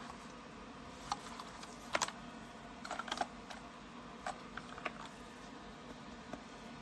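Keystrokes on a DREVO Seer PRO 61-key mechanical keyboard with Gateron Brown switches: irregular clicks, some alone and some in small quick clusters, with short pauses between.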